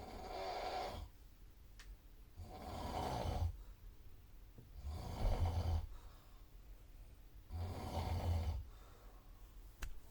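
A sleeping person snoring heavily, in a way far from ordinary snoring: four long snores about two and a half seconds apart, with a couple of faint clicks in the pauses.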